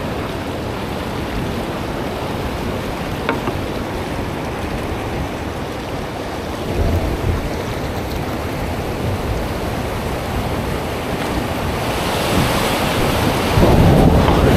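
River water rushing over rocks around a raft, with wind buffeting the microphone. The rush of water grows louder near the end as the raft reaches whitewater.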